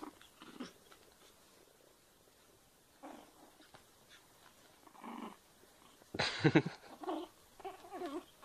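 Small dog giving short whining cries and yelps while being handled in rough play, several separate cries with the loudest about six seconds in.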